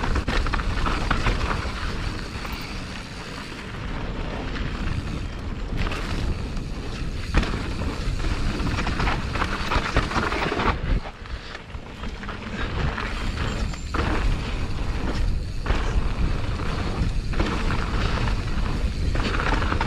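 Riding noise from a Polygon Siskiu N7 mountain bike on dry dirt singletrack: wind buffeting the action-camera microphone and tyres rolling over dirt, with scattered knocks over bumps. The sound drops briefly about eleven seconds in.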